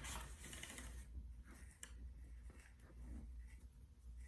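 Packaging rustling as it is handled, strongest for about the first second, then fainter with a few small clicks and taps.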